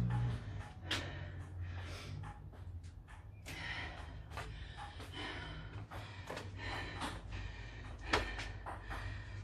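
A woman panting hard between sets of six-count burpees, a run of short, quick, gasping breaths at about two a second.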